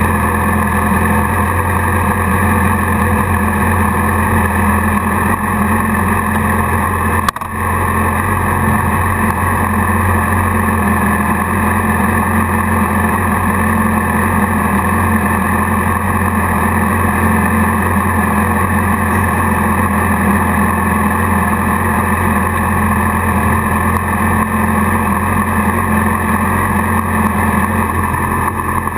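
Sport motorcycle engine idling steadily, heard close up from a camera mounted on the bike, with one brief click about seven seconds in.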